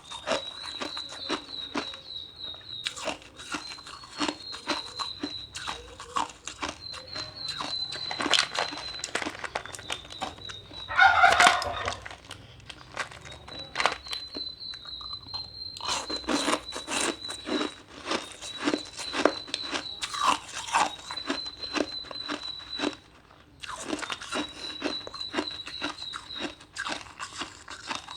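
Ice being bitten and chewed close to the microphone: a dense run of sharp crunches. A thin, high, steady note in the background stops and starts every couple of seconds, and a louder call stands out about eleven seconds in.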